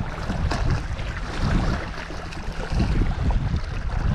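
Wind buffeting the microphone in gusts, over small waves lapping and splashing against shoreline rocks.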